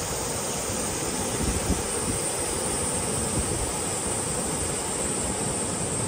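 Steady rushing of a broad waterfall, Chinda Falls on the Ōno River, together with the river running over the rocks below it.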